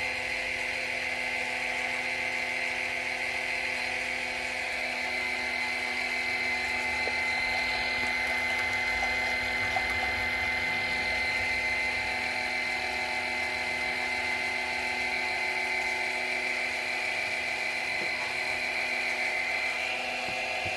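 Ultimate Speed electric oil extractor pump running with a steady whine as it sucks engine oil up through the dipstick tube; its tone shows it is picking up oil well.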